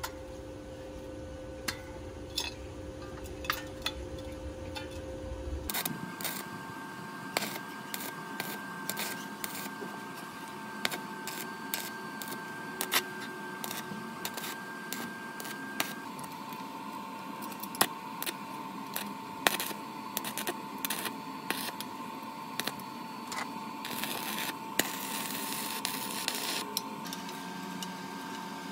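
Stick (SMAW) arc welding on steel square tubing: the arc crackles with frequent irregular sharp snaps over a steady hiss, with a steady tone underneath. The sound changes abruptly twice, as between separate welds.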